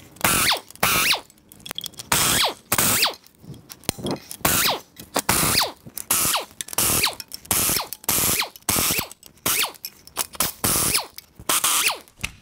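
Cordless power wrench run in many short bursts, each trailing off in a falling whine as the motor spins down, as it zips out exhaust manifold bolts.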